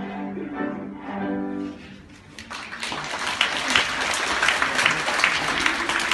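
A cello ensemble holds the last notes of a piece. They fade out about two seconds in, and after a short gap an audience starts applauding, steady dense clapping to the end.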